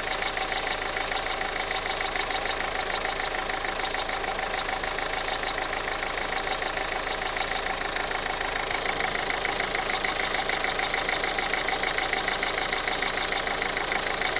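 Renault 1.5 dCi four-cylinder turbodiesel idling with a rapid, even ticking clatter running through it. This is the unexplained extraneous noise the owner is trying to pin down. It grows slightly louder about nine seconds in.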